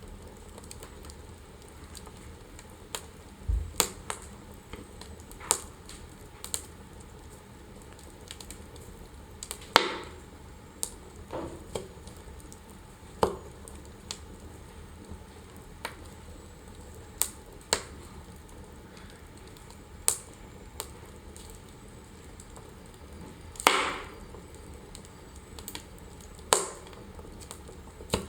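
Wood fire burning in a fireplace: irregular sharp crackles and pops, about one every second or two, over a faint steady hiss.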